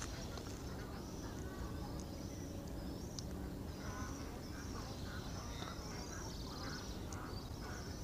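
Ducks quacking in a series of short calls, more of them in the second half, with high chirps from small birds and a low steady rumble underneath.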